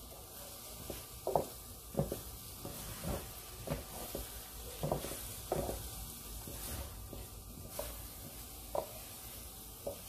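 Wooden spoon stirring and scraping scrambled eggs in a nonstick electric skillet: soft, irregular scrapes and knocks about once a second over a faint sizzle of the eggs cooking on low heat.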